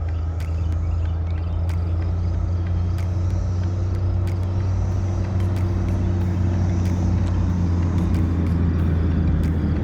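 A motor running steadily, a loud low hum with a few steady tones, with scattered faint clicks.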